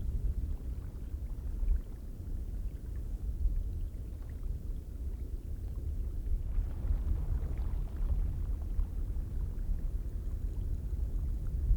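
Geyser ambience: a steady low rumble with a rushing hiss that swells about six and a half seconds in.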